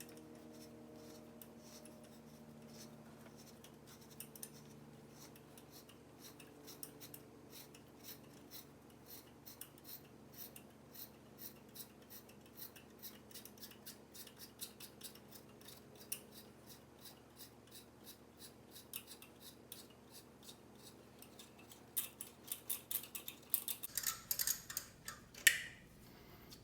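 Hand tap cutting threads into a drilled-out bolt hole in a Jeep M38A1 cylinder head, ready for a helicoil insert. It gives a long run of small metallic clicks and ticks as the tap handle is turned, growing denser and louder near the end.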